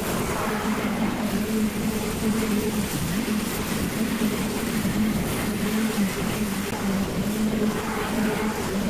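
Stand-on zero-turn lawn mower running with its engine and cutting deck going, a steady hum that wavers slightly as it drives across the lawn. It gets louder near the end as the mower passes close by.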